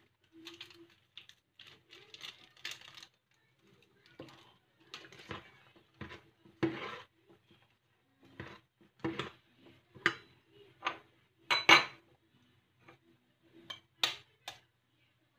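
Metal ladle stirring noodles in a metal pot, knocking and scraping against the pot's sides in a string of irregular clinks, the loudest near the two-thirds mark.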